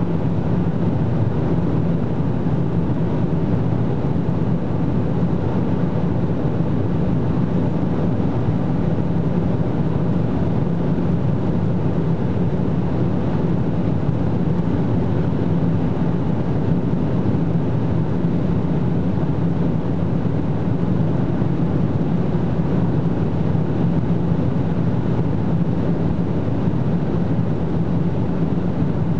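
Cabin sound of an Opel Insignia OPC at about 230 to 260 km/h: its turbocharged 2.8-litre V6 drones steadily under a constant rush of wind and tyre noise as the car slowly gains speed.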